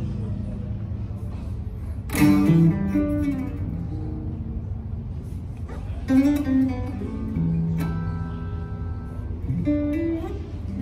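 Gibson Les Paul Studio Tribute electric guitar being played: picked notes and chords, with louder chords struck about two, six and ten seconds in, each left to ring out.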